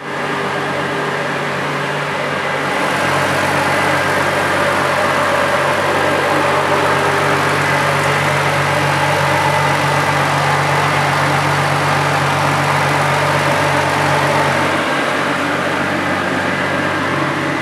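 Single-turbo 2JZ inline-six (Precision 6766 turbo) in a Nissan 240SX idling steadily. From about three seconds in the sound is a little louder and hissier, and it settles back shortly before the end.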